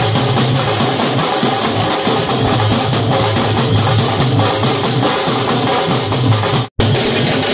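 A group of Bengali dhak drums beaten with sticks in a dense, fast rhythm, loud and continuous. It is cut off for an instant near the end.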